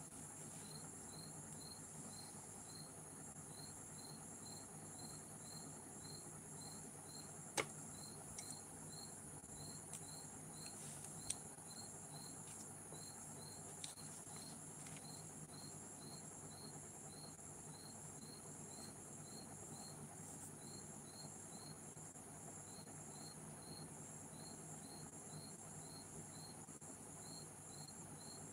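A cricket chirping steadily, about two short high chirps a second, over a faint steady hiss and hum. A few sharp clicks and taps stand out, the loudest about a quarter of the way in.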